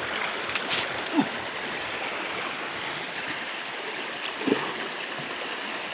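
Shallow creek water running steadily, with brief splashes about a second in and again near the end from people wading and stirring the muddy water with their hands.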